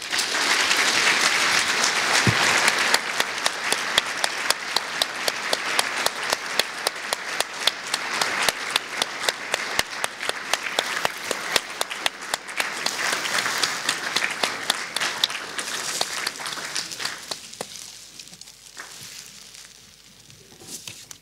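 Audience applause that starts all at once, holds steady, then thins out and dies away about seventeen seconds in.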